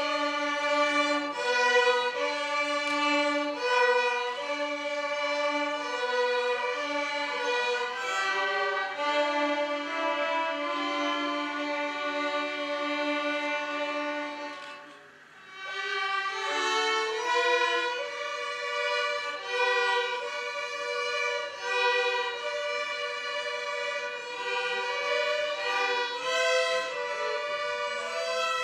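A children's violin ensemble playing a melody together with bowed, sustained notes. The sound dies away briefly about halfway through, then the next phrase begins.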